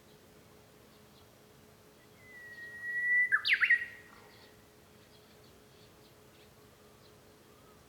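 Japanese bush warbler (uguisu) singing one song phrase about two seconds in: a long, steady whistle that swells in loudness, then a quick burst of sweeping notes, the familiar 'hoo-hokekyo'.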